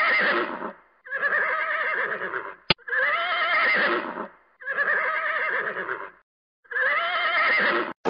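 A horse whinnying five times in a row. Each call lasts about a second and a half, with a wavering, trembling pitch, and short pauses fall between the calls. A single sharp click comes between the second and third whinny.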